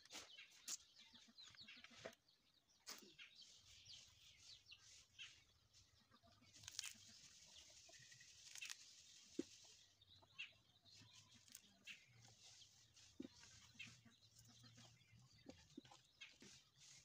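Near silence with faint, scattered clicks and taps as small fruits are handled and cut by hand, and chickens clucking faintly now and then.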